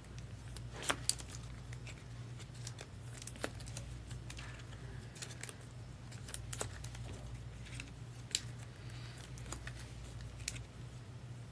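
Faint, scattered clicks and rustles of trading cards and their packaging being handled, over a low steady hum.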